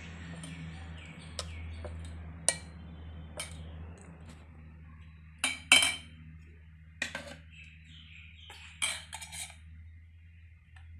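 Steel spoon clinking against a stainless-steel bowl and small metal kulfi moulds as thick batter is stirred and spooned out: scattered sharp clinks, the loudest a quick pair about halfway through. A low steady hum runs underneath.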